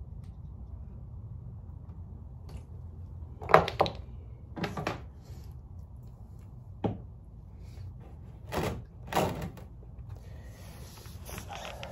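Handling knocks of a plastic oil drain pan and hand tools under a dirt bike during an oil change: about six short clunks between roughly three and a half and nine and a half seconds in, the first the loudest, over a steady low hum, with a faint hiss starting near the end.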